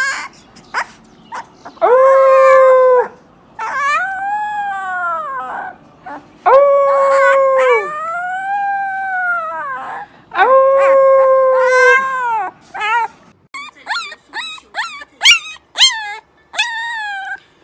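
Husky puppies howling: three times a long, loud, steady howl is followed by a softer howl that rises and falls in pitch. Near the end the howls give way to a quick run of short, yipping calls.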